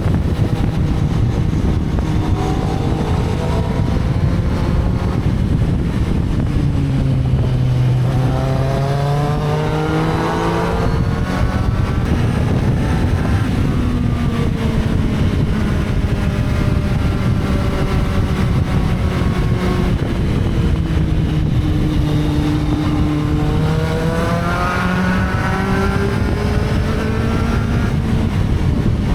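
Motorcycle engine under way, revving up and easing off: the pitch climbs steeply about eight seconds in and again near twenty-four seconds, and falls back in between, over a steady low rumble.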